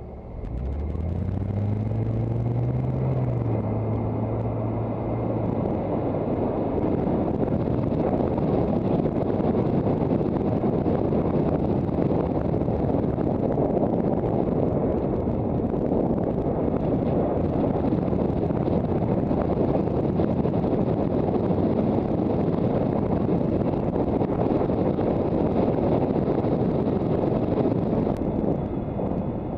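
Loud wind noise rushing over a helmet camera's microphone on an electric motorcycle conversion under way. About half a second in, the bike pulls away and a low electric-motor hum rises in pitch for a couple of seconds, holds steady, then sinks under the wind.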